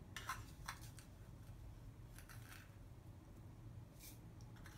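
Faint scrape and rustle of dry roasted green tea (hojicha) leaves being scooped from a tea caddy with a wooden scoop and tipped into a teapot, in a few short strokes.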